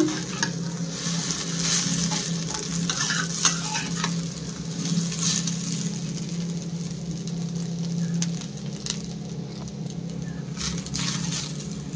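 Egg chow mein sizzling in a black non-stick frying pan while a spatula stirs and tosses the noodles, with repeated light scrapes and ticks of the spatula against the pan over a steady frying hiss.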